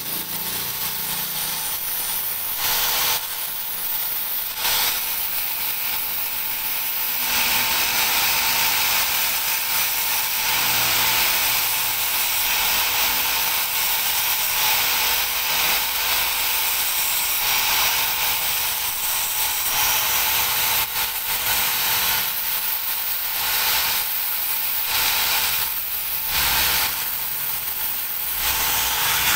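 Electric angle grinder running continuously, its disc grinding the threaded end of a steel cylinder head bolt to a cone and cutting grooves across the threads. It gives a steady whine under a harsh grinding hiss that eases off briefly several times as the bolt is lifted from the disc.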